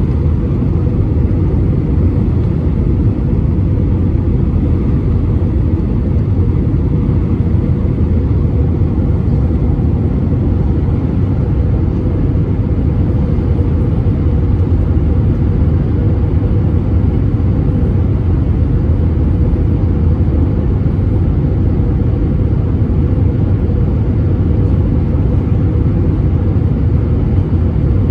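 Steady cabin drone inside an Airbus A320 airliner: engine and airflow noise as a constant low rumble with a faint steady hum running through it.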